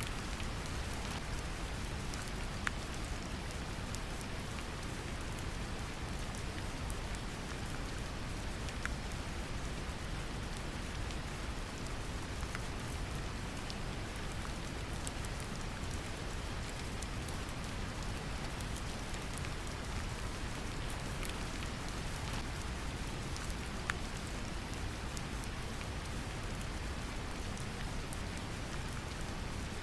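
Brown noise, a steady deep rumbling hiss, mixed with gentle rain: steady patter with scattered individual drops ticking on a surface.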